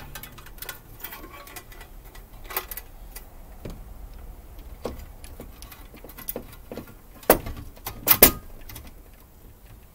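Scattered light metal clicks and taps as a metal electrical timer enclosure is handled and fitted onto the end of a metal conduit, with two sharp knocks about seven and eight seconds in.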